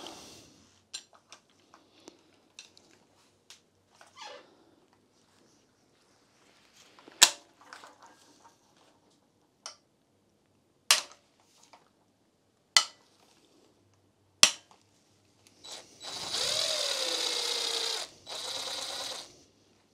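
Torx bolts on the oil pump of a Mini Cooper S N14 engine being loosened: four sharp cracks as the breaker bar breaks them free, then near the end a cordless ratchet spinning a bolt out in two bursts.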